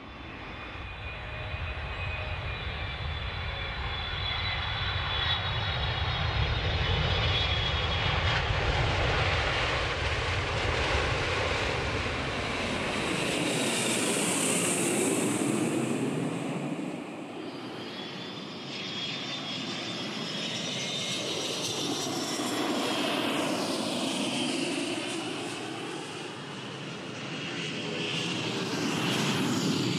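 Fixed-wing aircraft engines at high power during takeoff passes, a loud rumble with a high whine that sweeps in pitch as the aircraft goes by. About 13 seconds in the deep rumble drops away abruptly. The whine then builds to a second loud pass near the end.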